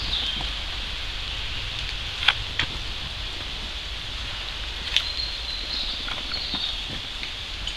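A few sharp cracks over a steady outdoor hiss: two close together a couple of seconds in, and a louder single one about five seconds in.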